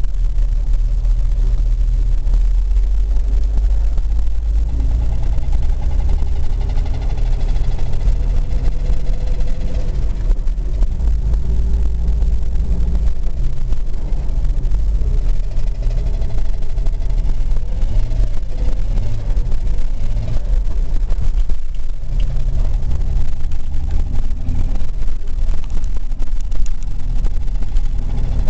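Jeep Wrangler 4.0-litre straight-six engine running steadily under way, a heavy low rumble with engine tones that drift up and down in pitch. It carries an abnormal noise that the engine only recently began to make, cause undiagnosed.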